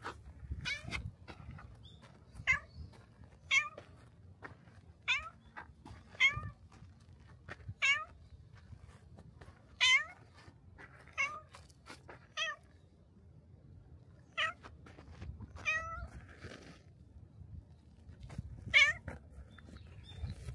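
A black stray cat meowing over and over: about a dozen short meows, roughly one every one to two seconds.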